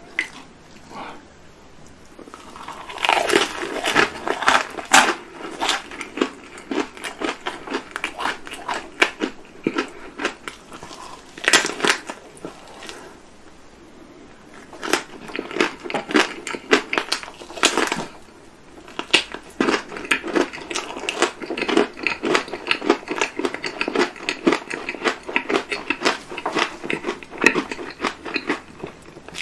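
Close-miked eating of chocolate treats: runs of crisp crackling bites and chewing that come in several clusters, with short quieter pauses between them.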